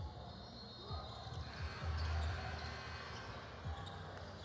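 A basketball bouncing on a hardwood gym floor, a few low thuds at irregular spacing, over the steady background noise of the hall with faint voices.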